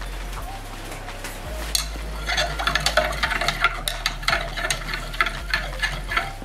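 A rod stirring liquid in a plastic jug. Quiet at first, then from about two seconds in come rapid, irregular clicks and scrapes as the rod strikes and rubs the jug's wall. The liquid is gold chloride solution being stirred while sodium metabisulfite precipitates the gold.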